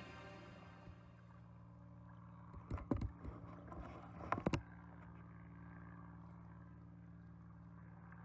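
Paddle handling on an inflatable stand-up paddleboard: a short cluster of knocks and splashy clicks about three to four and a half seconds in, over a faint steady low hum.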